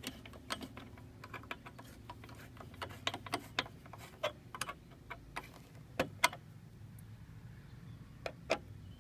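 Flathead screwdriver turning the worm screw of a stainless hose clamp on an aluminium pole: a run of small, irregular metallic clicks and ticks, a few louder ones partway through.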